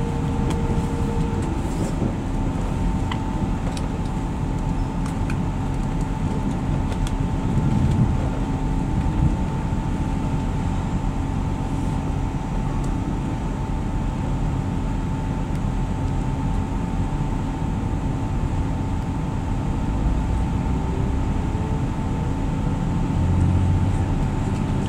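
Passenger saloon of a Class 175 diesel multiple unit under way: a steady drone of the underfloor diesel engines and transmission with the rumble of wheels on the track and a couple of steady whining tones. Near the end a note rises in pitch.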